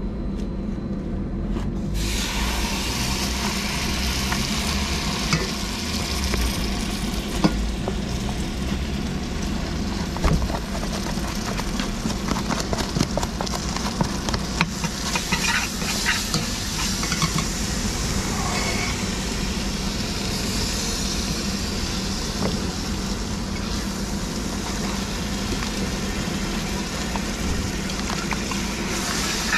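Satay paste and spices sizzling in hot oil in a stainless steel pot. The sizzle starts about two seconds in as the paste hits the pot, with a metal spoon scraping and clicking against the tub and pot over a steady low hum.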